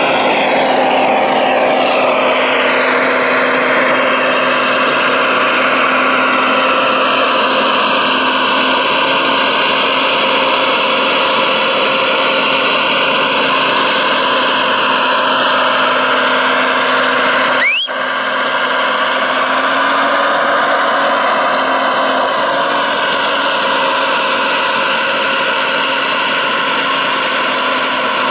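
Hydraulic pump and drive of an RC Liebherr R970 SME model excavator running with a steady whine. Its pitch rises and falls as the hydraulic boom and log grapple are worked. There is a short break about two-thirds of the way through.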